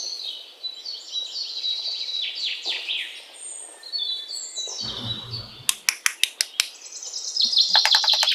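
Birds chirping and calling in quick, pitch-sliding notes, with a brief low rumble about five seconds in, a handful of sharp clicks just after, and a fast rattling trill starting near the end.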